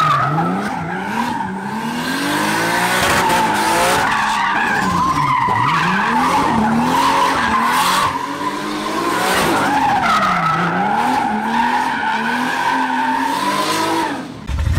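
A drifting car, its engine revving up and down again and again over a steady squeal of sliding tyres.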